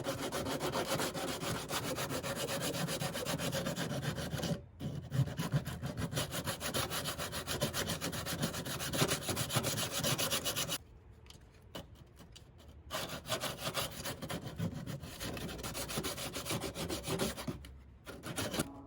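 80-grit sandpaper rubbed back and forth by hand on a car fender in fast, steady strokes, with a short break about four and a half seconds in and a quieter, sparser stretch around eleven to thirteen seconds.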